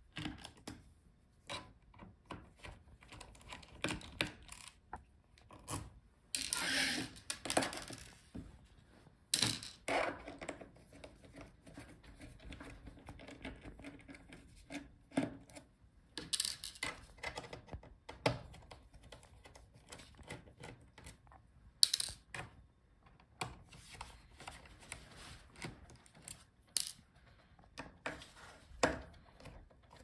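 Screws being undone from a laptop's bottom case by hand and screwdriver: irregular small clicks, taps and rubs of metal on the case. There is a longer rustle about seven seconds in, and a few sharper clicks later on.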